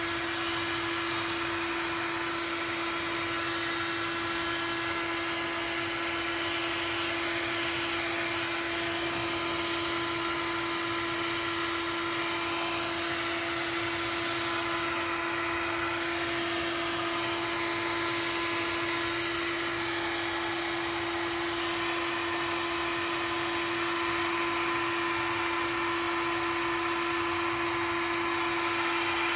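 Heat gun running steadily, blowing hot air onto plastic to soften it: a constant fan hiss with a steady hum and a thin high whine.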